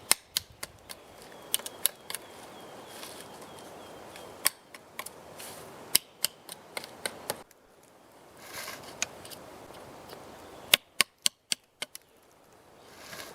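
Sharp, irregular clicks and knocks, with a quick run of about five loud ones near the end.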